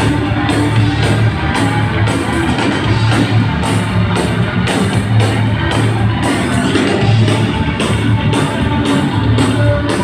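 Rock band playing live: electric guitar, bass and drums, with cymbal strokes keeping a steady beat.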